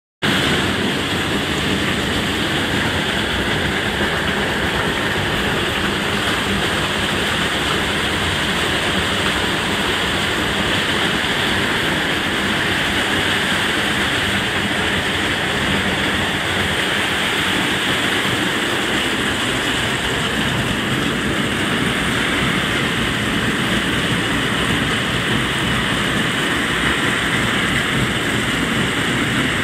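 Torrential rain falling on a conservatory roof, heard from inside: a loud, steady hiss that does not let up.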